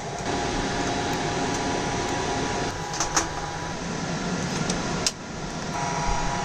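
Server cooling fans running steadily with a faint whine, with a few sharp clicks.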